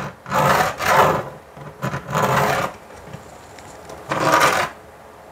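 Four short scraping strokes against the board while level lines are being marked, each about half a second long with pauses between.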